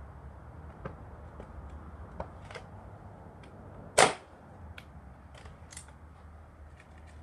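A single sharp shot from a .22 air rifle about four seconds in, with a few faint clicks before and after it.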